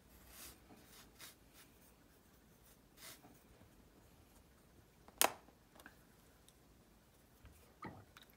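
Fine paintbrush stirring and rubbing egg tempera paint on an acrylic mixing plate: a few faint scraping strokes, then a sharp tap about five seconds in and a smaller click near the end.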